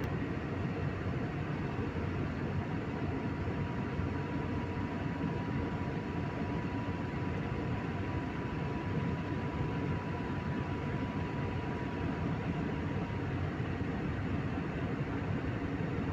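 Steady cabin noise of a jet airliner in cruise: the even rush of the engines and airflow, with a faint high whine that fades out about three quarters of the way through.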